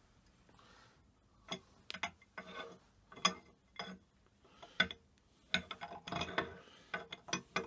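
Small metal milling-machine parts being handled and fitted together, with irregular sharp clicks and light knocks that bunch up near the end.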